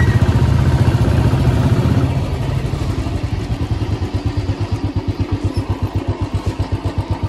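Royal Enfield Classic 350's single-cylinder engine pulling away, louder for the first couple of seconds, then running at low revs with an even thump of about seven beats a second.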